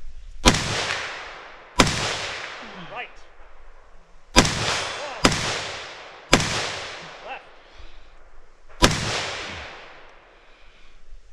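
Six rifle shots from a scoped rifle fired at an irregular pace, the last about two and a half seconds after the one before. Each shot trails off over roughly a second of echo.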